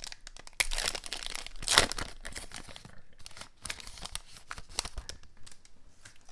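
Foil wrapper of a 2020 Panini Prizm football card pack crinkling and tearing as it is opened, loudest about two seconds in, then lighter rustling as the cards are slid out.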